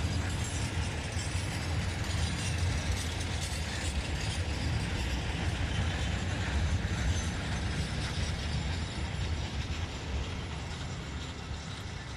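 Container freight train's wagons rolling away on the rails, wheels on track making a steady rumble and rattle that fades over the last few seconds as the train recedes.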